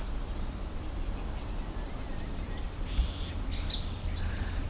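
Birds chirping: a few short, high chirps, most of them in the second half, over a steady low rumble.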